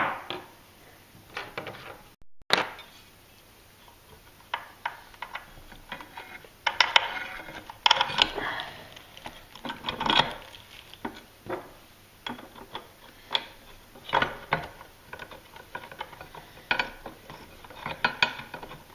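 Irregular metallic clicks, clinks and knocks as the aluminum work table and its adjustment bolt are handled and fitted onto an unpowered 1x30 belt sander.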